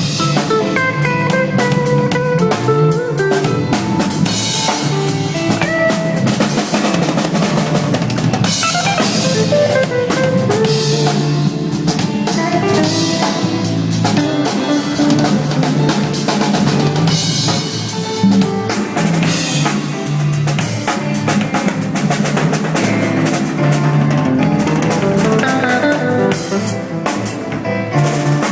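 A live band jamming: a drum kit playing busy fusion grooves with rimshots and bass drum under a guitar.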